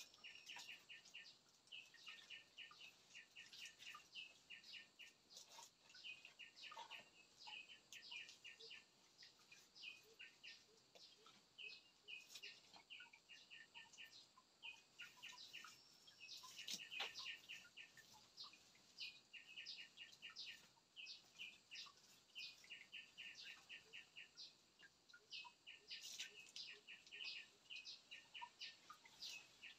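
Faint, continuous chirping of small birds: quick runs of short high chirps, one after another, with a few soft knocks among them.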